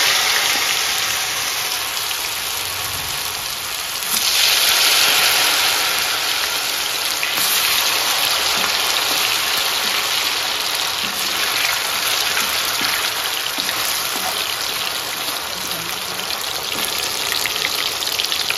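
Batter-coated mushroom pieces sizzling as they deep-fry in hot oil, a steady, loud sizzle that swells about four seconds in.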